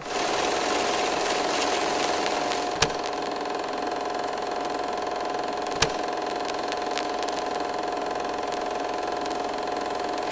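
A steady mechanical whirr with a held hum, and a sharp click about three seconds in and another about six seconds in.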